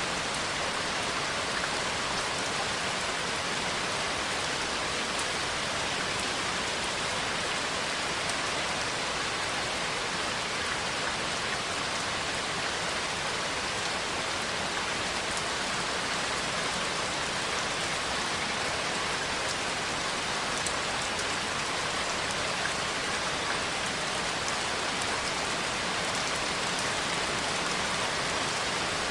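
Steady rain falling, an even hiss of rain on surfaces with no thunder and no change in strength.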